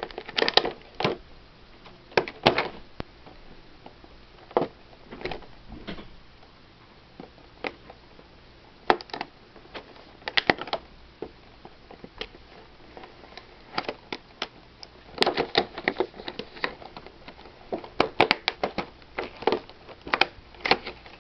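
Cardboard retail box and its plastic insert being handled and pried open: irregular crinkles, crackles and taps that come in clusters with short pauses between them.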